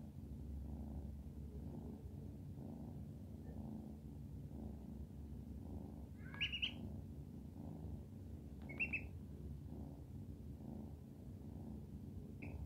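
Kitten purring, a low steady rumble with an even pulse. Over it come a few short, high peeps from a duckling, about six and nine seconds in and again near the end.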